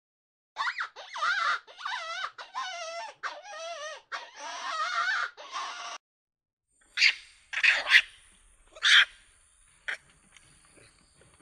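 Dog whining in a run of high, wavering calls, followed by a few short, harsh sounds.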